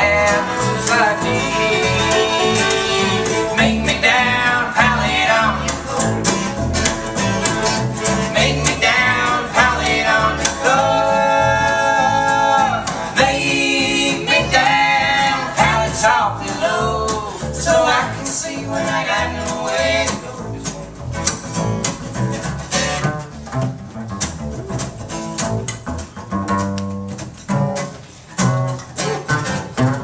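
Acoustic string band playing an instrumental passage live: fiddle carrying the melody over a strummed acoustic guitar and a plucked upright bass. The bluegrass-style band sound thins out somewhat toward the end.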